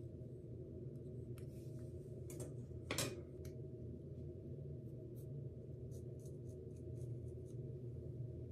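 Scissors snipping hair while bangs are trimmed: faint, scattered snips, one louder about three seconds in, over a steady low hum.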